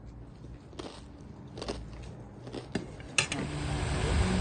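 A few light clinks and taps of dishes and cutlery, the sharpest just after three seconds in. Right after it a loud, steady rushing noise begins.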